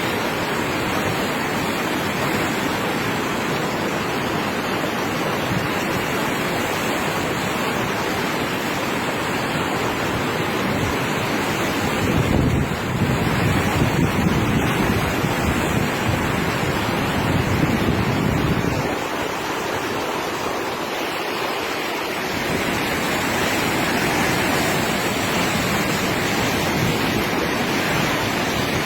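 Floodwater of a river in spate rushing steadily after heavy rain. Wind buffets the microphone with a low rumble for several seconds in the middle.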